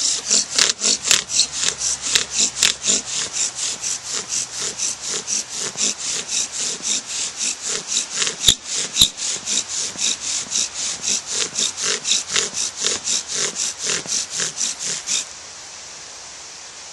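Bow drill in use: an arborvitae spindle drilling into an arborvitae hearth board, with fast back-and-forth bow strokes at about three a second while the spindle smokes. There are two sharp clicks about halfway through, and the strokes stop near the end.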